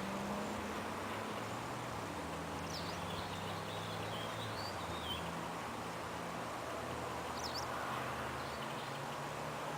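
A steady low engine hum with a few short bird chirps over it, one about two and a half seconds in, a short run around the middle, and another near the end.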